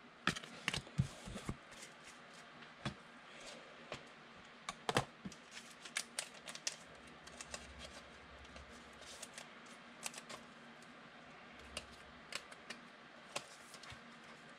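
Trading cards being handled and sorted by hand: scattered light clicks and taps of card stock, irregular, with a sharper tap about five seconds in.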